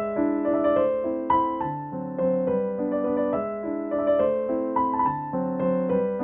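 Solo piano music: a slow, gentle melody over lower held notes, a new note struck about every half second.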